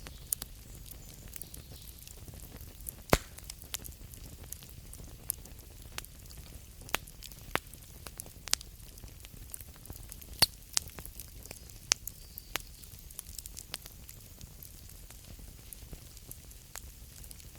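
Campfire crackling: irregular sharp pops and snaps over a steady low rumble and soft hiss, with two louder pops about three seconds in and about ten seconds in.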